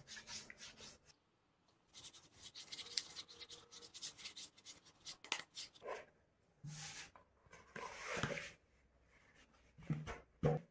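Soft bread dough being scraped and gathered around a plastic mixing bowl with a silicone spatula and hands: a faint run of short scrapes and rubs. Near the end the dough is tipped out of the bowl onto the worktop.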